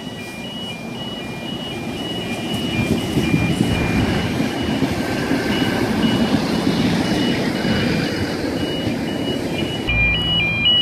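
Endeavour diesel railcar passing close by: its engine and wheel noise grows louder over the first few seconds and stays strong as it goes past. Under it runs a steady electronic beeping of two alternating high tones. Near the end the sound changes abruptly to a quicker two-tone beeping over a low engine hum.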